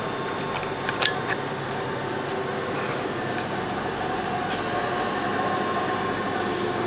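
MS 1500 vertical spindle grinder's hydraulic table drive running steadily, a constant mechanical drone, with one sharp click about a second in.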